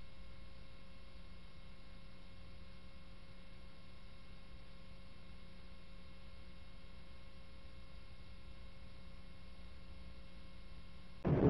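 Steady electrical hum with faint hiss from an old film soundtrack that carries no sound of its own. A louder, noisier sound cuts in right at the very end.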